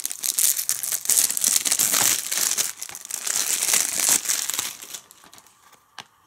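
Plastic shrink-wrap being torn and peeled off a DVD case, crinkling and crackling for about five seconds before it dies down.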